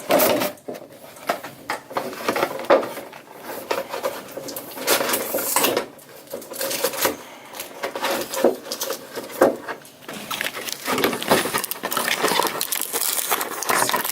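Cardboard packaging being handled and worked open by hand: irregular rustling and scraping with many small knocks and clicks.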